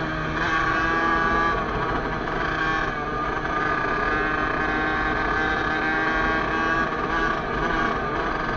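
Kawasaki KX65's small two-stroke single-cylinder engine running at a steady cruising speed, its pitch dipping and rising a little, with wind rumble on the microphone.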